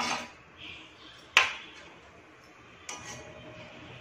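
A metal slotted spoon knocking against a kadhai: three sharp clinks about a second and a half apart, the middle one the loudest with a short ring.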